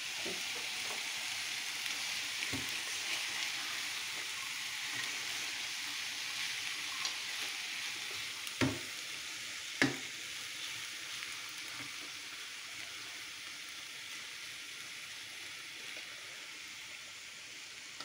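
Boiled rice sizzling in hot sugar syrup and oil in a frying pan, the sizzle slowly fading, while a spoon stirs it and knocks against the pan a few times, loudest twice near the middle.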